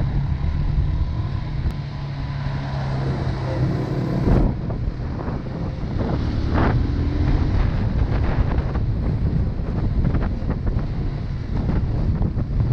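250 cc single-cylinder dual-sport motorcycle engine running steadily on the move, with wind buffeting the microphone. From about four seconds in come a sharp knock and a run of rattles and clanks as the bike rides onto and across a steel bridge deck.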